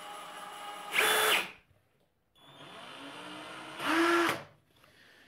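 Two cordless hammer drills run in turn on their variable-speed triggers: a genuine 18V DeWalt brushless drill and a counterfeit 36V 'DeWalt' with a brushed motor. Each runs slowly with a low hum, then speeds up to a loud, higher whine for about half a second and stops; the second run starts a little after two seconds in.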